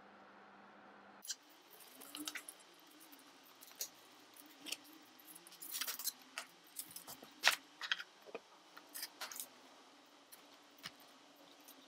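Knife and fork clicking and scraping on a ceramic plate in an irregular string of light, sharp clinks, after a low steady hum that cuts off about a second in.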